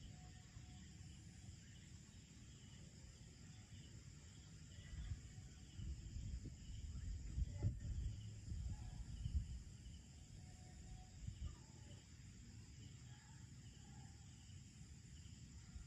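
Faint night-time insect chorus, a steady high-pitched trilling, over low rumbling that swells about halfway through.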